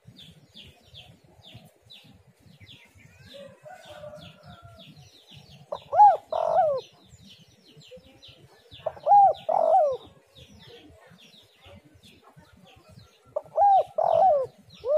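Spotted dove cooing: three phrases, a few seconds apart, each a couple of short rising-and-falling coos followed by a longer coo. Faint, rapid high chirping goes on steadily in the background.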